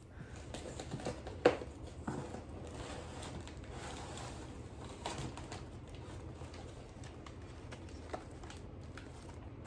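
Crumpled paper packing rustling and crinkling as it is handled, with scattered small clicks and one sharper click about a second and a half in.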